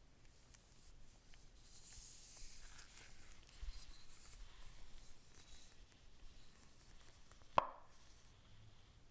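Faint rustling and light scraping of hands handling packaging and the device during unboxing, with one sharp click about seven and a half seconds in.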